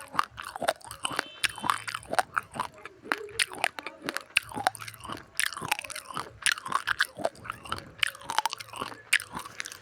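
Close-up crunching of uncooked rice grains being chewed: many sharp, irregular crackling crunches, several a second, as the hard grains are bitten and ground between the teeth.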